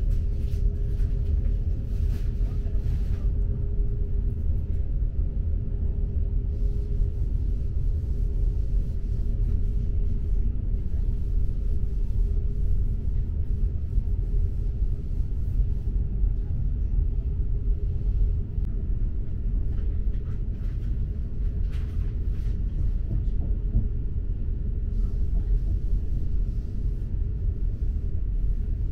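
Steady low rumble of a Trenitalia double-decker regional train in motion, heard from inside the carriage, with a steady mid-pitched hum running under it.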